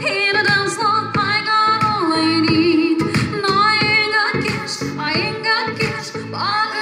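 A woman singing a song live into a microphone, with a synthesizer keyboard accompaniment and a steady beat.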